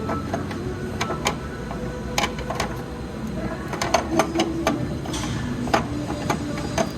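Hand tools and metal engine parts clicking and tapping irregularly, several sharp clicks a second at times, over a steady low background hum.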